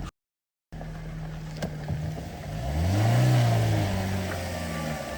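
Dacia Duster 1.3 TCe 150 turbocharged four-cylinder petrol engine running while driving off-road in mud. It cuts out for about half a second just after the start, then revs up about halfway through and eases off again, with a rush of tyre and mud noise as it revs.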